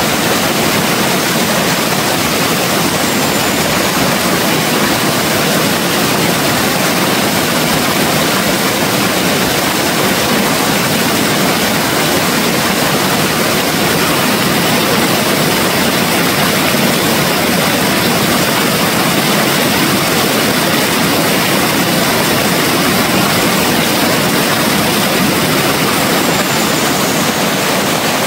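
Steady, loud rushing of running water, an even roar that does not change.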